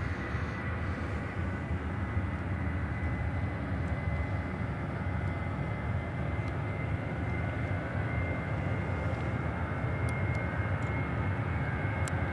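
Boeing 737-800's twin CFM56-7B jet engines at take-off thrust on the take-off roll: a steady deep rumble with a thin whine on top that climbs slowly in pitch as the aircraft gathers speed.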